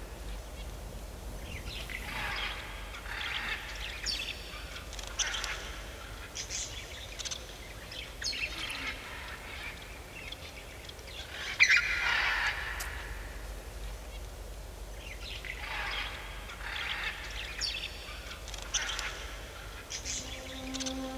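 Birds calling outdoors: a series of short, harsh calls every second or two.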